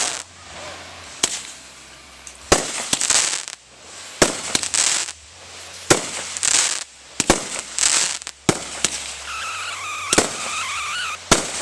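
Fireworks display: aerial shells going off with sharp bangs every second or two, several followed by a hissing crackle.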